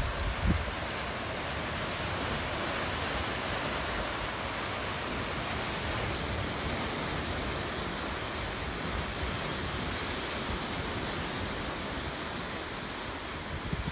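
Steady wash of lake surf breaking on shoreline rocks, with a brief buffet of wind on the microphone about half a second in.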